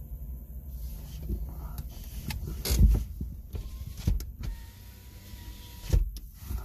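Knocks and clunks inside a parked Nissan Leaf's cabin, three sharp ones about a second and a half apart, with a faint steady whine in between.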